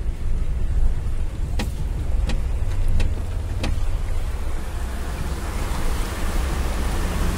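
A car's engine and cabin rumble, with a few sharp ticks in the first half. From about five seconds in, a rising hiss of water as the car drives through the flooded road.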